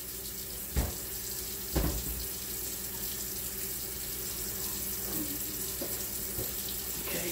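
Steady hiss of water running from a kitchen tap, with two dull knocks about one and two seconds in.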